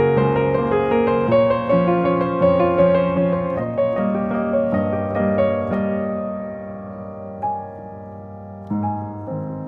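Gentle solo piano background music. Its chords thin out and fade for a moment about seven seconds in, then new notes come in near the end.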